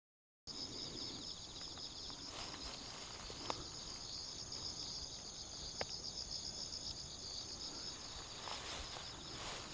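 Chorus of insects, crickets among them, trilling steadily at a high pitch, with a fast pulsing in one of the voices. A couple of sharp clicks stand out above it.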